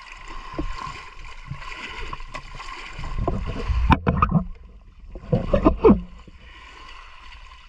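Shallow seawater sloshing and splashing as someone wades and reaches into it by hand, louder twice, about three and five seconds in.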